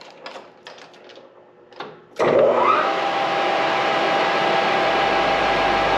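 A few light clicks, then about two seconds in a metal lathe is switched on: its motor spins up with a short rising whine and then runs steadily with a loud hiss.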